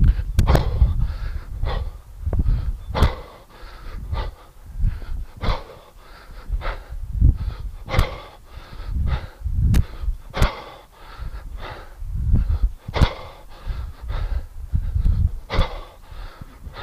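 A man breathing hard under exertion, with sharp forceful exhales repeated every second or two in time with the effort of a kettlebell set.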